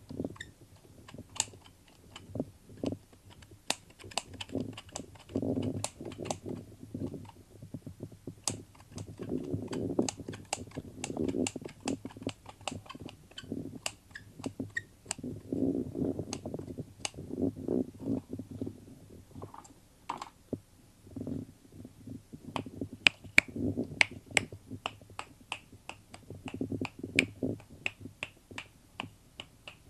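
Irregular sharp clicks and snaps, many per second, with the loudest ones a little past the middle. Low muffled rumbling swells come and go underneath.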